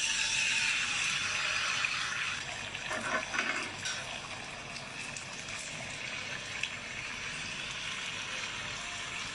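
A steady watery hiss that starts suddenly, with a few light knocks about three seconds in.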